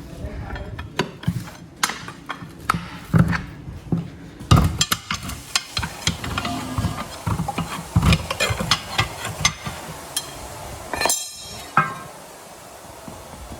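Irregular knocks, taps and scrapes of hand tools working on a truck tyre and its inner tube, with a short rushing noise of about a second near the end.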